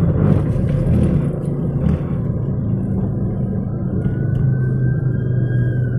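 Car cabin road and engine noise while driving, a steady low rumble. About four seconds in, a faint siren wail begins, rising slowly in pitch.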